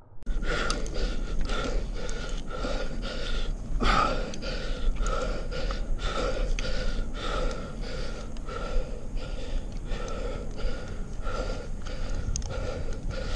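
A man's heavy, rapid breathing close to the microphone, about two breaths a second, as a tree climber pants from exertion high in a pine.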